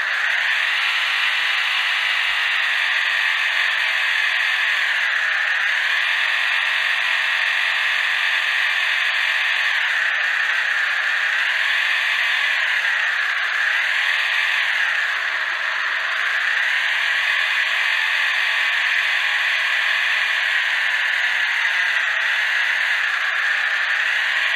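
Stock electric motor and gear train of a 1:32 Orlandoo Hunter OH32P02 RC crawler whining, heard up close from on board. The pitch rises and falls again and again as the throttle changes.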